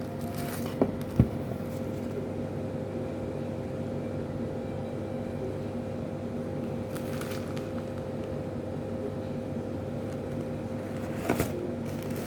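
Steady mechanical hum with a constant low tone. Two sharp knocks come about a second in, and there are brief rustles near the middle and just before the end.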